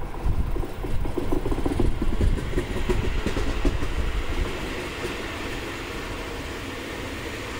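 Seibu 40000-series electric train departing the station and passing close by: a low rumble of wheels and running gear, joined by a hiss higher up from about three seconds in as the cars go by.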